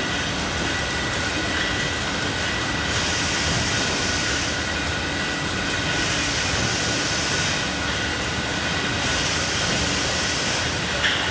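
Steady machinery noise of a bottling-line depalletiser and the plant around it, with a constant high whine and a hiss that swells and fades every few seconds. Faint light ticks run through it, and there is a small click near the end.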